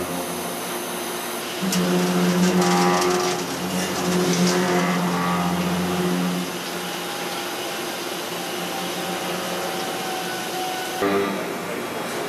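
A 5-axis CNC machining center's spindle milling a block of KP4M mold steel: a steady pitched whine from the spindle and cutter over a hiss of cutting. It is louder for the first few seconds, then runs quieter and steadier, and changes abruptly about a second before the end.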